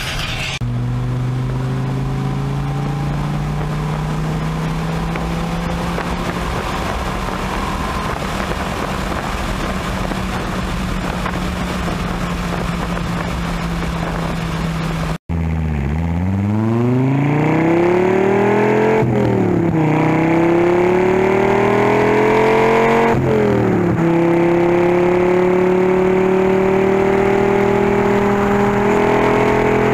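Dodge Viper V10 engine pulling on the road. At first it runs at a steady pitch that creeps slowly upward. About halfway through the sound cuts to a hard acceleration: the revs climb, drop sharply at each of two upshifts, then climb again.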